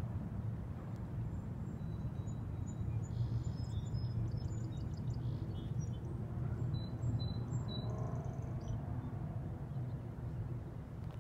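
Steady low outdoor rumble, with faint, short, high-pitched chirps of small birds through the first two-thirds.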